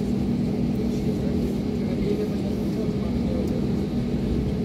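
Airbus A320neo cabin sound while taxiing: the engines' steady hum over a low rumble.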